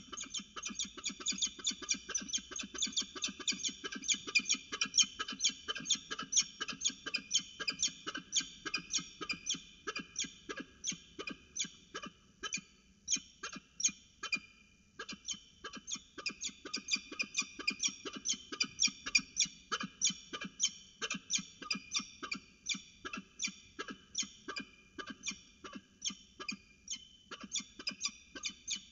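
Peregrine falcon giving its alarm call at an intruder: a harsh, rapid 'kek-kek-kek' cacking at about three calls a second, starting abruptly and kept up with only brief pauses.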